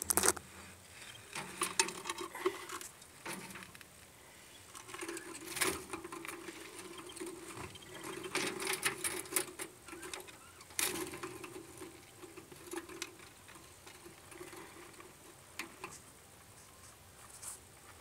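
Budgerigar chicks in the nest box giving a rapid, raspy chittering in repeated bursts, mixed with sharp clicks and knocks on the wooden box.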